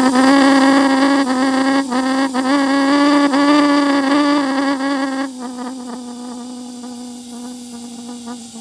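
Homemade pulse jet firing with a loud, steady buzz, kept going by compressed air blown into it: it lights and makes noise but does not run on its own. About five seconds in the buzz drops to a quieter, thinner tone.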